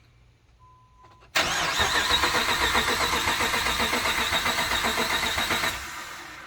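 A pickup truck's engine is cranked by the starter for about four and a half seconds and turns over steadily in even pulses, without firing because there is no fuel in it. It is a sign that the engine still turns freely after the crash. A short steady beep comes just before the cranking starts.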